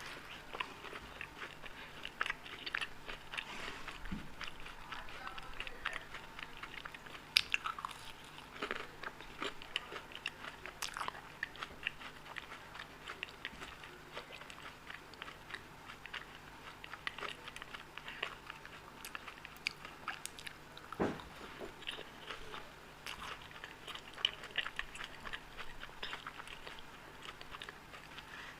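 Close-miked eating sounds of a person chewing and biting Indian sweets: a steady run of small wet mouth clicks and smacks, with a few louder bites.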